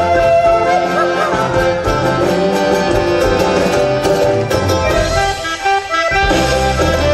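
Instrumental folk music with guitar and accordion, ending a phrase and starting the next after a brief pause near the end.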